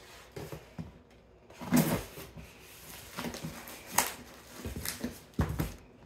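Small taped cardboard box being slit open with a knife and its flaps pulled open: scattered cardboard knocks, scrapes and rustles, with sharper knocks about two, four and five and a half seconds in.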